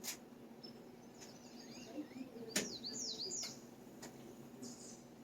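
Small wild birds chirping, with a few quick swooping calls near the middle. Two sharp clicks cut in, one at the start and a louder one about two and a half seconds in.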